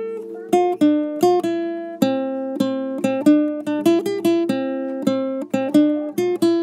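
Background music of a plucked acoustic guitar, strummed chords and picked notes in a steady, lively rhythm.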